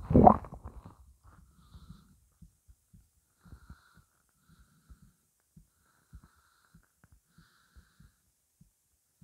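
Empty human stomach gurgling from hunger, holding nothing but water: a loud, short rumble right at the start, then scattered faint pops and gurgles at irregular intervals.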